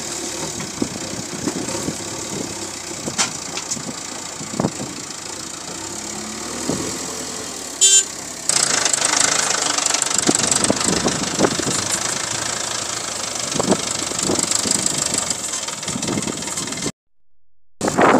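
Diesel engines of a JCB 3DX backhoe loader and a Mahindra 575 tractor running, with scattered knocks. A brief loud high tone sounds about eight seconds in, and the sound cuts out for under a second near the end.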